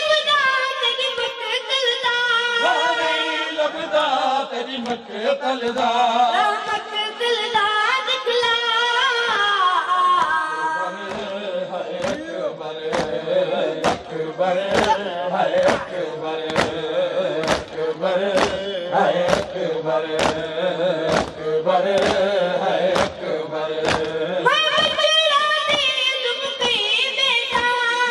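A boy's voice reciting a noha, a Shia lament sung without instruments, into a microphone, with men and boys chanting the refrain. Through the middle the group keeps a steady beat of chest-beating (matam) slaps, about one and a half a second, then the solo voice carries on alone near the end.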